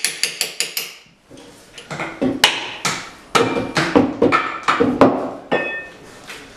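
Quick series of hammer taps on steel, knocking the locking tabs back off the flywheel bolt heads of a Jaguar 4.2 engine, about six taps in the first second. After a short pause come irregular metal clanks and clinks with a ringing tone, as bolts and tools are handled to free the flywheel.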